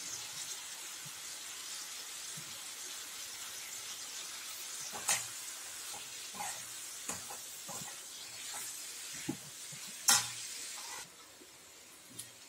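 Vegetables frying in oil in a metal kadai, sizzling steadily, while a metal spatula stirs them, scraping and clinking against the pan with a few sharper knocks. The sizzle drops away about eleven seconds in.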